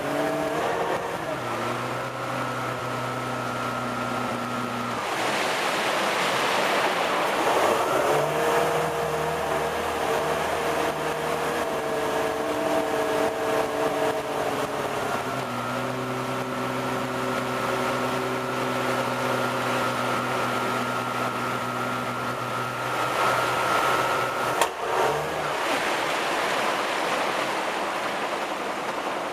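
A boat's 350 cubic-inch V8 MerCruiser sterndrive engine running under way, with the rush of wake water and wind. Its pitch steps up about a quarter of the way in and back down about halfway. Near the end the engine note drops away under a wash of water.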